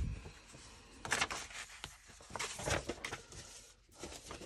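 Paper rustling and sliding as paper-bag journal pages and paper pieces are handled, in a few short rustles about a second in and again about two and a half seconds in.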